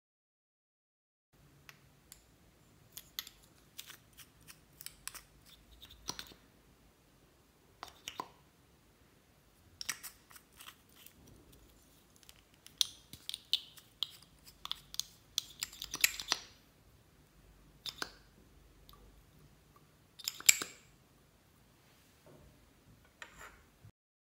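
Clear slime being worked by hand, giving irregular sticky clicks and crackling pops, with a few louder clusters.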